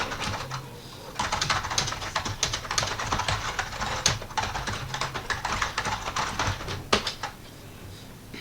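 Typing on a computer keyboard: a fast, irregular run of key clicks with a few louder single keystrokes, easing off near the end.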